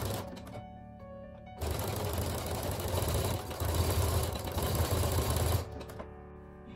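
Brother Innovis 15P electronic sewing machine stitching jersey knit in two runs: it stops about half a second in, starts again about a second later, and stops near the end.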